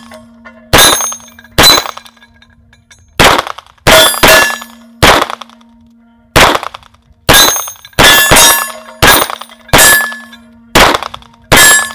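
A 9mm semi-automatic pistol with a red dot fires a string of about fourteen shots at close steel, roughly one a second with some quick doubles. A steel gong rings on with a steady hum after several of the hits.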